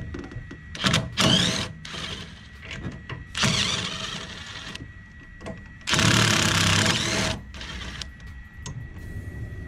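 Cordless drill spinning strut-top nuts off through a socket on an extension, in three separate runs: a short one about a second in, another around three and a half seconds, and a longer, louder one near six seconds. The motor whine climbs as it spins up.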